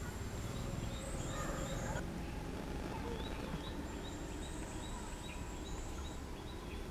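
Outdoor ambience: a bird repeats a short high chirp about three times a second, over a high steady buzz that stops and starts, with a low rumble of wind underneath.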